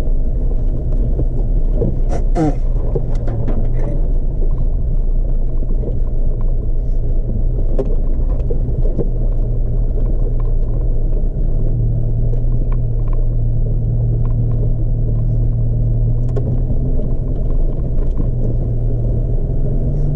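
Steady low engine and drivetrain rumble of a Jeep driving a dirt trail, with scattered small knocks and rattles.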